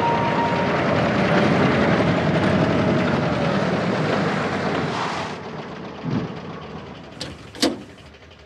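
Military jeep's engine running loudly as it pulls up, cutting off abruptly about five seconds in. Then a low thump and two sharp clacks near the end, the second the loudest.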